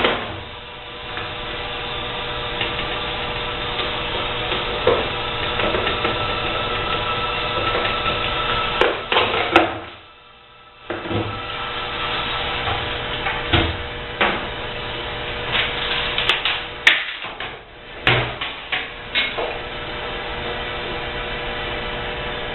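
Scattered knocks and clatter of dishwasher parts being worked loose with hand tools, over a steady hum. The sound cuts out briefly about halfway through.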